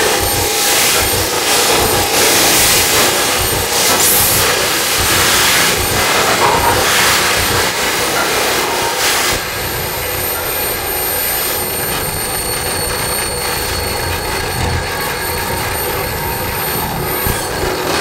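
Live electronic noise music played through a PA: a dense wash of hissing, grinding noise with sweeping swells, which changes about halfway through to a steadier layer carrying thin, high, steady whines.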